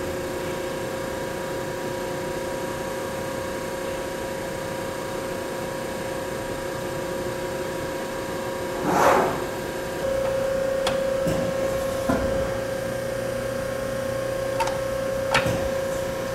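Baykal CNC hydraulic press brake running with a steady hum, its hydraulic unit powered up. About nine seconds in there is a short louder swell. After that the hum steps up and stays louder, with a few sharp clicks.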